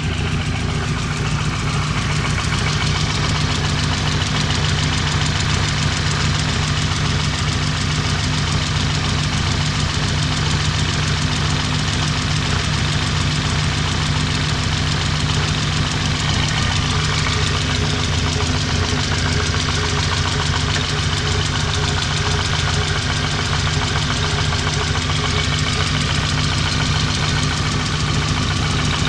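Engine idling steadily with a dull knock running through it. The knock began some time after the crankshaft was reground, and the engine has been rebuilt and run only at idle since.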